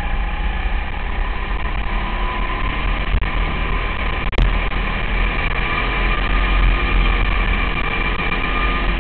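200cc go-kart engine running steadily at racing speed, heard from a helmet-mounted camera, over a heavy low rumble. A single sharp knock comes about four and a half seconds in.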